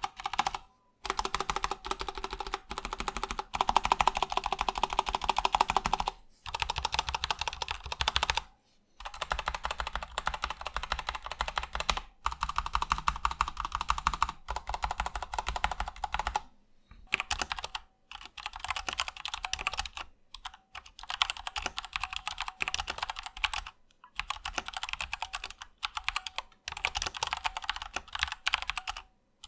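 Fast typing on a Patriot Viper V730 mechanical keyboard with Kailh Brown tactile switches and Costar stabilizers: a dense stream of key clacks in runs, broken by short pauses of under a second several times.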